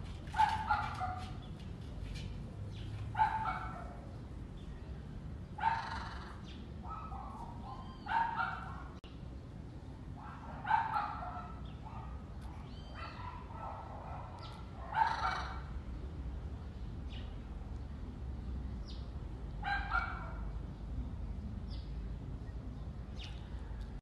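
Repeated short, loud barking calls, about seven of them spaced a few seconds apart, over a steady low rumble.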